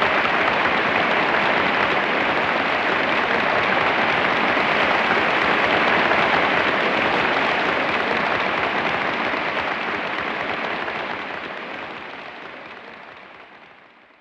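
Audience applauding, steady at first, then fading out over the last few seconds.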